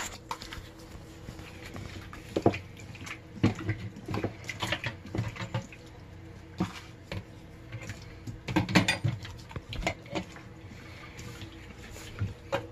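Raw shrimp being squeezed and kneaded by hand in a bowl of seasoning: scattered wet squelches and light taps of a plastic tub against the bowl, over a faint steady hum.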